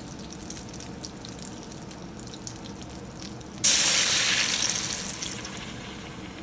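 Bacon frying gently in a wok with faint crackling; about three and a half seconds in, water poured from a cup hits the hot bacon grease with a sudden loud hiss that fades over the next two seconds.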